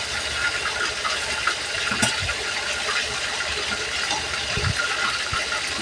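A steady, even hiss from a lit gas stove and the pans heating on it.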